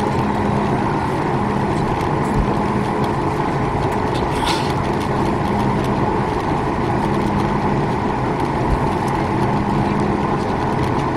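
Steady cabin rumble and hum inside a Boeing 737 MAX 8 as it moves off its stand on the ground, with a brief hiss about four and a half seconds in.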